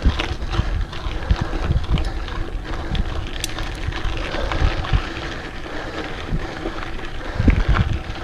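Wind buffeting the microphone of a GoPro on a mountain bike climbing a steep hill, with irregular low thumps and rattles from the ride, stronger about seven seconds in.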